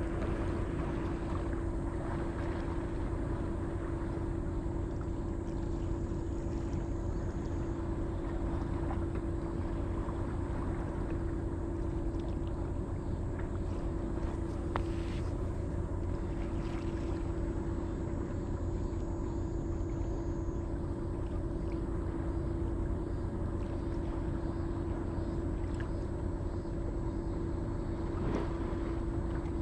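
A steady motor drone that holds one pitch, over a low rumble.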